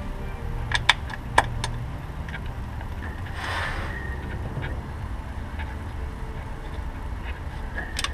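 Small sharp clicks and a brief scrape as bolts are fitted by hand to a differential cover, over a low steady hum. Several clicks come close together about a second in, the scrape a little past the middle, and one more click near the end.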